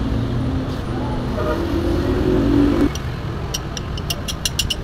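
A steady low drone stops suddenly about three seconds in. Then a socket ratchet starts clicking as it is worked on the 4G15 cylinder head, the clicks getting quicker near the end.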